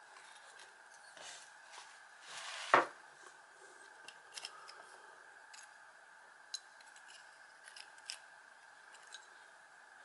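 Long-nose pliers working at the metal housing of a small AC motor: a short scrape builds into one loud, sharp metallic snap about three seconds in, followed by scattered light clicks and taps of the metal parts being handled.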